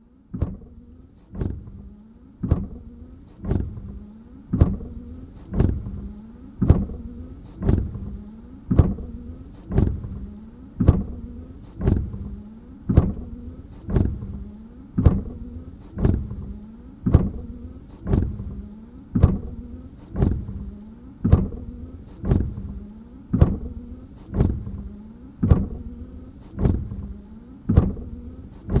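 Car windshield wipers sweeping back and forth at a steady pace of about one stroke a second. Each stroke starts sharply and fades, over a steady low motor hum.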